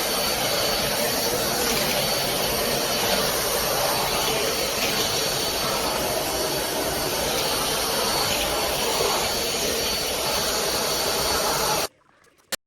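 Corded stick vacuum cleaner running at full suction, a steady rushing motor noise with a faint high whine; it cuts off sharply near the end, followed by a single click.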